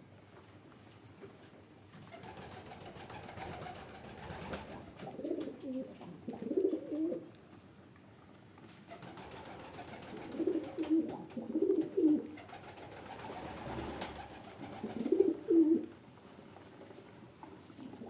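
Pigeon cooing: three bouts of low, rolling coos a few seconds apart.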